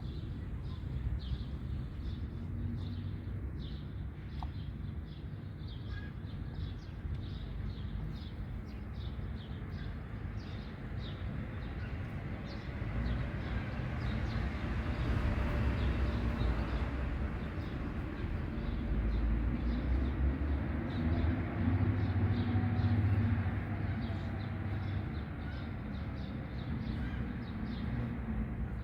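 Outdoor ambience: a steady low rumble that swells for about ten seconds in the middle, with a long run of short, quick high clicks throughout.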